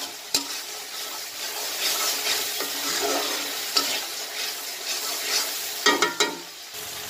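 Onion and spice masala sizzling in oil in a wok while a metal spatula stirs and scrapes it, sautéing (kosha) the curry base. About six seconds in, a few sharper metal strokes stand out above the sizzle.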